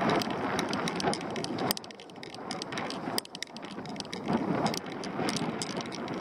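Bicycle rolling over a rough, gravelly road: tyres crackling on the loose surface and the bike rattling, with many sharp clicks and a rushing noise that swells and fades.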